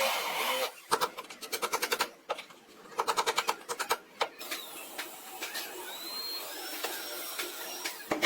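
A power tool runs briefly and stops, followed by bursts of rapid, evenly spaced tapping, about ten strikes a second, then sparser taps.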